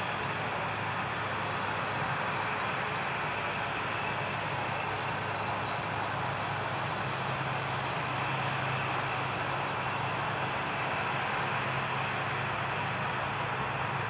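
New Holland CX820 combine harvester running while harvesting wheat: a steady engine hum under an even, broad noise from the threshing machinery.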